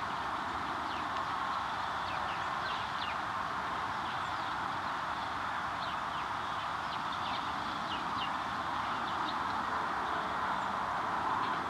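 Birds giving many short, high chirps scattered through, over a steady, even rush of outdoor background noise.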